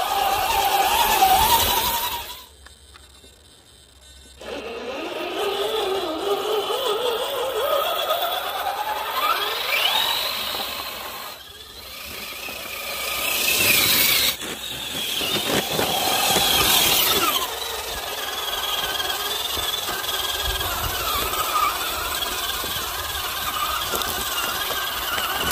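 A large-scale 6x6 RC crawler driving over a woodland trail, its motor and geared drivetrain whining in pitches that rise and fall with the throttle. The sound drops away briefly near the start, and the whine climbs steeply about ten seconds in.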